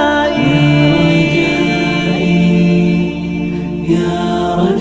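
Arabic devotional nasheed: voices singing long held notes over a steady low drone.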